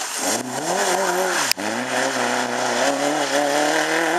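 Rally car engine pulling hard as the car passes, its note rising through a gear. About one and a half seconds in, a short sharp crack and a brief break in the note as it shifts up, then the note climbs again through the next gear.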